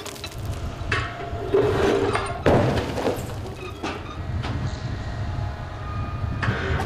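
Heavy concrete breakwater armour cubes dropped from 2 m crash onto other concrete blocks, with sharp impacts about one and two and a half seconds in. A steady low rumble of heavy machinery runs underneath.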